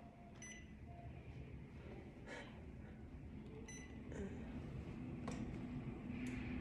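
Short electronic beeps from the card payment terminal of a souvenir coin vending machine, heard twice a few seconds apart, with faint clicks of handling. A faint low hum comes in about five seconds in.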